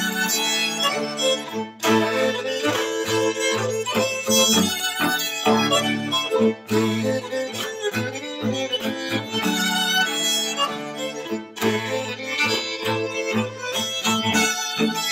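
String quartet of two violins, viola and cello playing a Norwegian traditional reinlender, a folk dance tune, with the cello holding long low notes beneath the violin melody.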